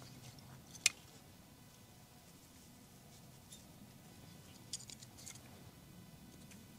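Faint crackling and clicking of a freshly lit tinder fire of cedar shavings and punk wood in a portable folding metal wood stove as kindling is fed in: one sharp click about a second in and a few small clicks near five seconds.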